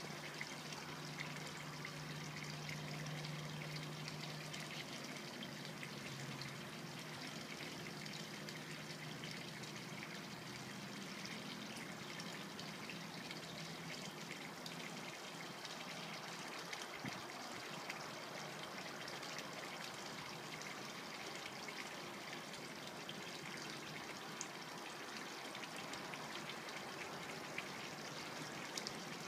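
Swimming pool water trickling steadily, with a low hum during the first few seconds.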